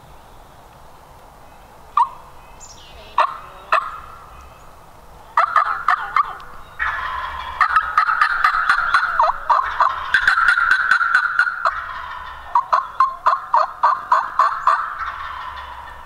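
Turkey calling: a few single sharp yelps, then from about five seconds in a long run of yelping and rattling calls, densest in the middle, ending in an evenly spaced series of about four yelps a second.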